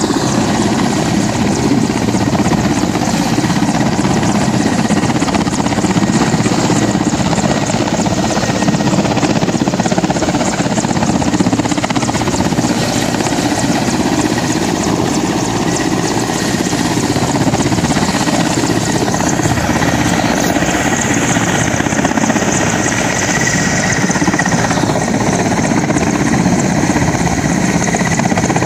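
Military transport helicopter hovering low, its rotor chop and engine noise running steadily and loudly, with a thin steady high tone over it.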